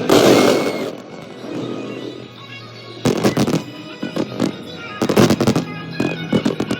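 Fireworks going off: a big burst right at the start that rings away over about a second, then rapid volleys of crackling bangs about three seconds in, again around five seconds and near the end. Music plays underneath.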